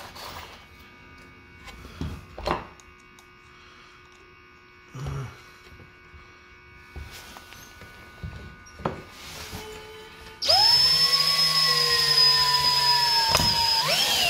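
Cordless drill with a screwdriver bit driving a 1 5/8-inch drywall screw into the joint of a wooden stretcher frame: after a few light knocks of wood being handled, the motor starts about ten seconds in and whines steadily at low speed for about four seconds, speeds up briefly near the end, then winds down.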